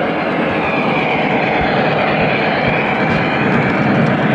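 O-gauge model train running on three-rail track: a steady rumble of wheels and motor that grows a little louder near the end as a model Union Pacific steam locomotive and its tender pass close by.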